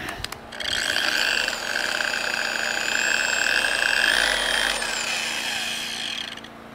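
Harbor Freight 7.5-amp variable-speed polisher's electric motor running with a high whine, its pitch lifting a little partway through, then winding down near the end.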